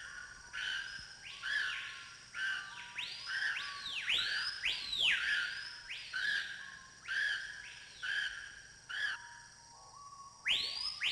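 Jungle bird calling over and over: loud whistled notes that each swoop up high and fall back, roughly one a second, with short level chirps between them.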